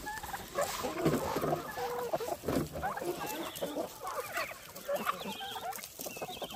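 A flock of free-range chickens calling, many short overlapping calls at once.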